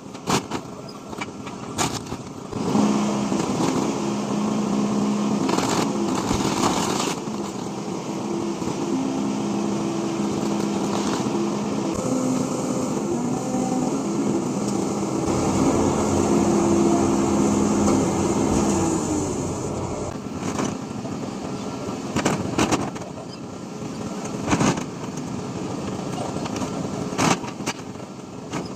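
An engine running with a steady hum that shifts in pitch now and then, over a noisy background. Sharp knocks and bangs come at intervals, most of them early on and again after about 20 seconds in.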